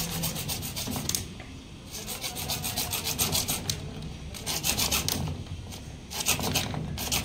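Hand-held bare hacksaw blade sawing through a CPVC pipe: rapid short scraping strokes in several bursts, with brief pauses between them.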